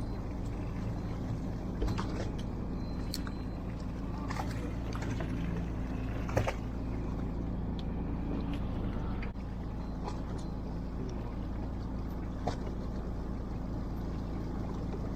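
Fishing boat's engine running with a steady low hum, with a few scattered light clicks and taps over it.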